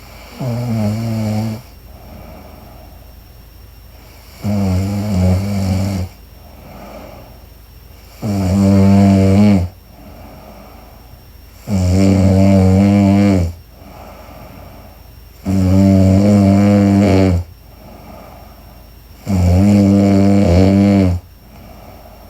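A woman snoring in her sleep: six loud, pitched snores, each one to two seconds long, coming about every four seconds in a steady rhythm.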